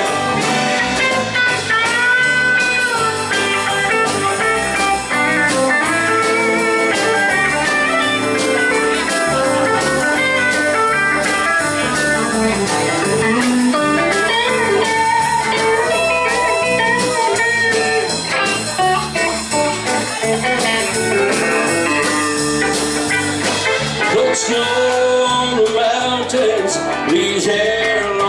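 Live country band playing an instrumental break between verses: a melodic electric guitar lead with bending notes over rhythm guitar, bass guitar and drums.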